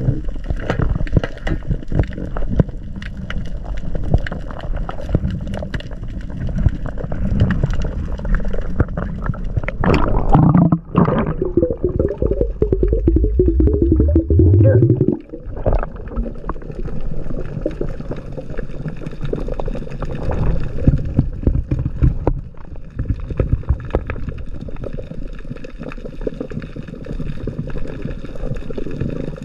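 Muffled underwater noise around a freediver's action camera: a steady low rush of water with constant fine crackling and knocks. About ten seconds in, a louder muffled rushing begins, with a low hum that rises in pitch for about five seconds and then cuts off.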